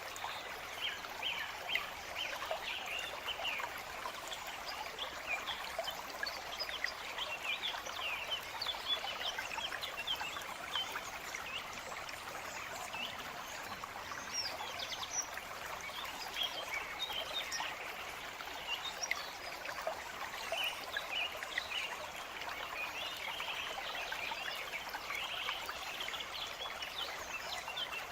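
A small forest stream trickling and babbling steadily, with many quick high splashes and bird chirps mixed in.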